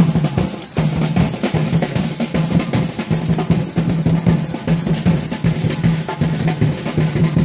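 Drums beating a fast, steady rhythm, with a low note pulsing in time with the beat.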